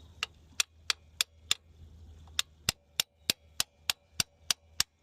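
Hammer tapping on a socket to drive a new transmission filter O-ring seal evenly into its bore: light metal-on-metal taps about three a second, five of them, a short pause, then nine more.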